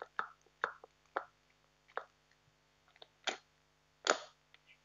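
Homemade glue slime being worked by hand in its container, giving about six short wet pops and clicks at irregular intervals.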